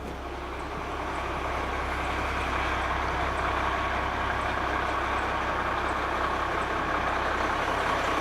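A vehicle engine running steadily, growing louder over the first few seconds and then holding at a steady level.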